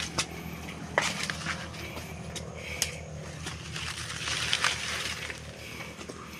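Footsteps crunching and rustling through leaves and undergrowth on a muddy trail, with irregular snaps and crackles.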